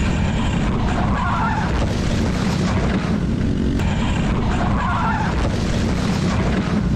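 A motor vehicle running, with tyres skidding.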